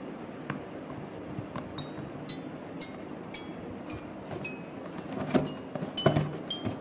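High, bell-like chime notes playing a slow melody, about two notes a second, starting about two seconds in. A few soft knocks from the cardboard box being handled come near the end.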